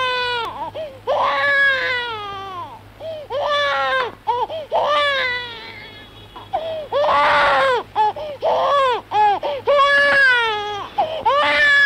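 Baby crying: repeated wailing cries that each slide down in pitch, with short breaks for breath between them.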